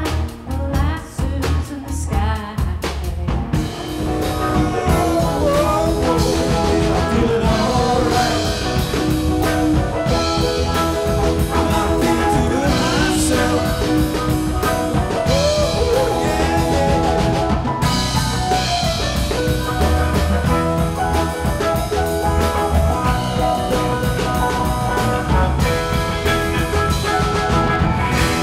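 Live rock band with drum kit, electric guitar and a singer. For the first few seconds there are only sparse drum hits, then the full band comes in and plays steadily with singing.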